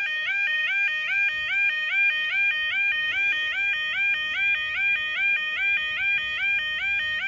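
Level crossing warbling alarm sounding, a two-tone rising warble repeating about twice a second: the warning that the barriers are down and a train is approaching.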